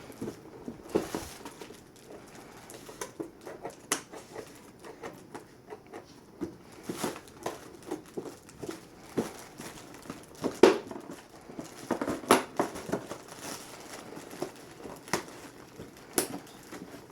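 Cardboard and plastic doll packaging being handled and opened from the back: irregular sharp clicks and taps among short crinkling rustles.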